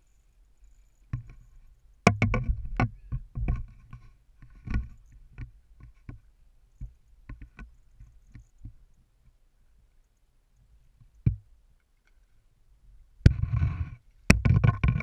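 Irregular knocks and thumps of water slapping a small boat's hull, with handling knocks against the boat. Near the end comes a louder cluster of splashing as a pompano thrashes in a landing net at the water's surface.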